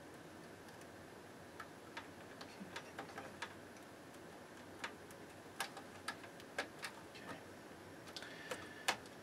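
Scattered sharp plastic clicks and taps of wire connectors being pushed onto a tuner's circuit-board headers, starting about a second and a half in and coming more often in the second half, the sharpest near the end.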